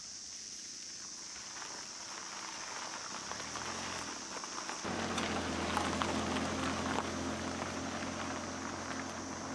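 Rain falling and pattering in scattered ticks, growing louder partway through. About halfway in, a steady low engine hum sets in abruptly under the rain.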